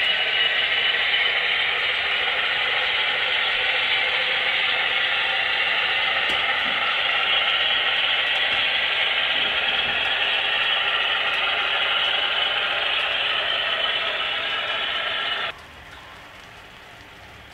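HO-scale Broadway Limited Centipede model locomotives running past close by, a loud, steady mechanical running noise. It cuts off suddenly near the end, leaving the quieter rolling of model coal hopper cars on the track.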